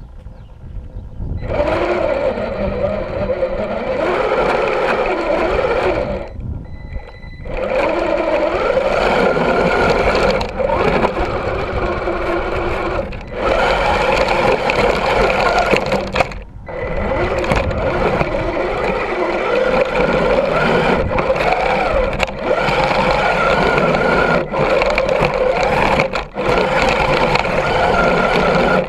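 Axial SCX10 II RC crawler's electric motor and geared drivetrain whining steadily as the truck drives through snow, heard close up from a camera mounted on the truck. The sound starts about a second and a half in and drops out briefly several times.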